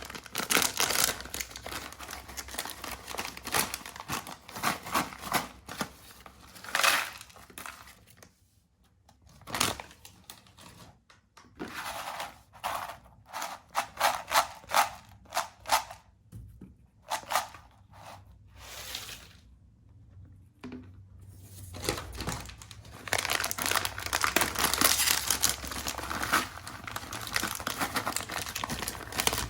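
Plastic snack-chip packets crinkling and tearing as they are handled and opened, with a couple of quieter pauses midway.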